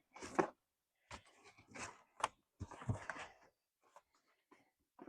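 Quiet handling noises: scattered brief clicks, knocks and rustles as a car seat belt is pulled across and fitted over a stacked cabinet.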